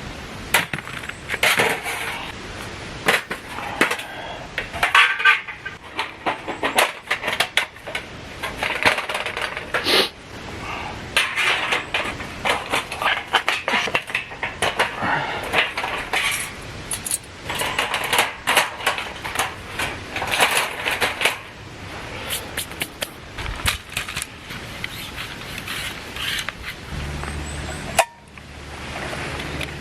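Irregular clinks, clatter and knocks of camp gear being handled. Near the end it cuts suddenly to a steady low hum.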